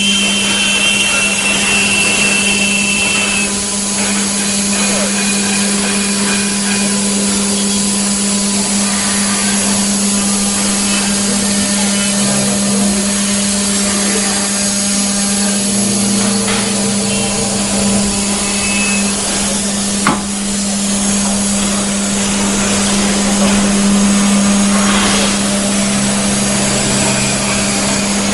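5-axis CNC router cutting wood: the spindle runs with a steady hum under a constant cutting hiss, with one sharp knock about 20 seconds in.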